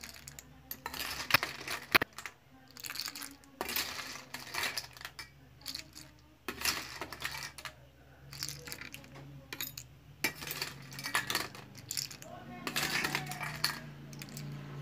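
A metal spoon scraping and clinking in a stainless steel bowl while boiled clams in their shells are scooped out, the shells clattering against the metal in irregular bursts of clicks.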